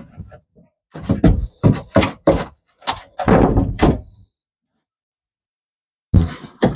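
Dull thunks and knocks of a freshly cut plywood board being set and knocked into place on a roof deck, irregular for about four seconds, then two more near the end.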